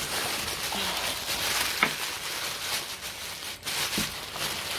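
Honeycomb kraft-paper packing wrap rustling and crinkling as it is pulled apart and handled, with one sharp tap a little under two seconds in.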